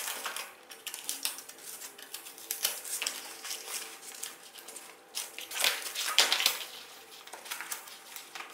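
Aluminium foil of an underfloor heating mat and its tape crinkling and rustling under the hands as the heating cable is pressed into foam insulation board: a run of short, irregular crackles, loudest a little past the middle.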